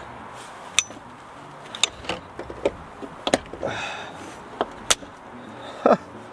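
Sharp metallic clicks and knocks, single and in pairs, from a ratchet driving a socket on a long extension bar onto a thermostat housing bolt.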